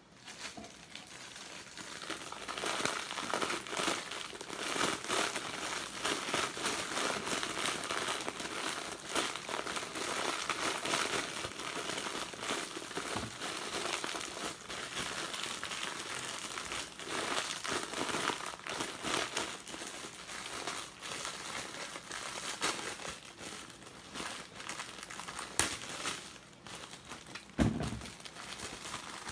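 Steady close-up crinkling and crackling from something being handled and crumpled, with a sharp click and a dull knock near the end.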